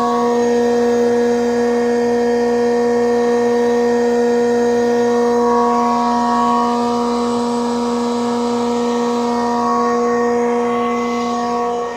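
High-stage industrial refrigeration compressor running steadily: a loud, even machine hum with a fixed pitch and several overtones over a noisy rush.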